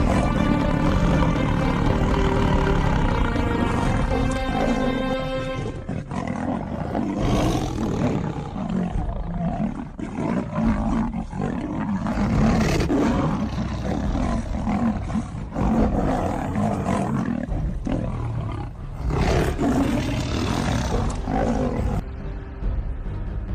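Big cats, a lion and a tiger, growling and roaring in rough repeated surges as they fight, mixed with dramatic soundtrack music. The music's held notes are most prominent for the first six seconds, after which the growls and roars dominate.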